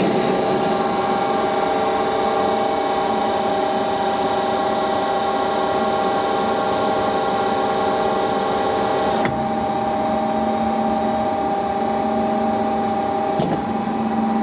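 Machine tool running steadily with a steady whine over a hiss. The sound changes abruptly twice, about nine seconds in and shortly before the end.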